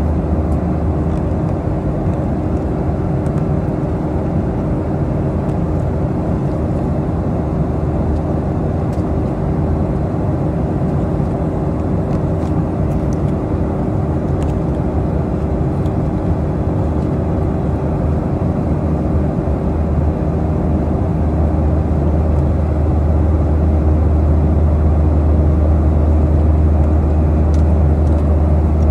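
Steady cabin noise of a Boeing 737-800 airliner in flight: the rush of airflow over the fuselage and the low hum of its CFM56 turbofan engines, with a couple of steady tones. It grows a little louder about two-thirds of the way through.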